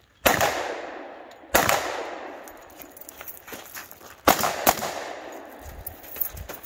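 Four pistol shots from a Colt Delta Gold Cup: one, a second about a second and a quarter later, then a quick pair about two and a half seconds after that, each trailing off in a long echo.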